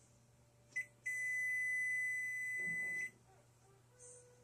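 Electronic beeps from a Frigidaire range's control panel as its keys are pressed: one short beep, then a steady beep lasting about two seconds.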